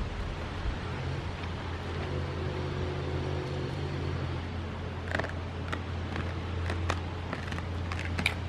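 Goats eating feed, with sharp crunching and clicking bites from about five seconds in, over a steady low rumble.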